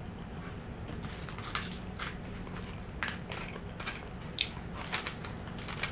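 Eating sounds: a fork breaking into a chicken pot pie's flaky crust in its foil tin, giving a handful of soft, scattered clicks and crunches, with chewing.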